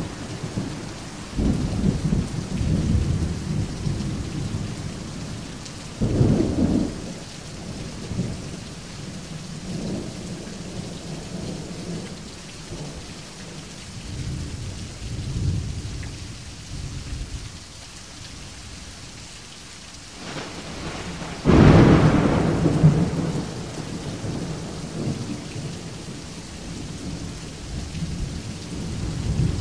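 Steady rain with rolling thunder rumbling underneath. A louder thunder rumble swells about six seconds in, and the loudest, sharpest peal breaks about two-thirds of the way through.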